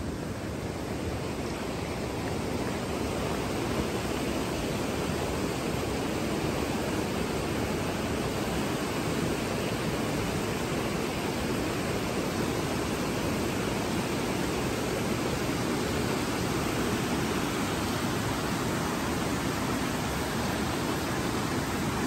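Steady rush of water over rocks in a mountain stream, growing a little louder over the first few seconds.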